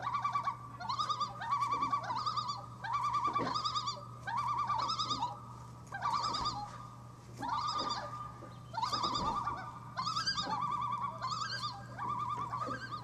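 A person making really weird animal-like noises with their voice: short, rapidly warbling high trills, repeated about once a second, over a steady low hum.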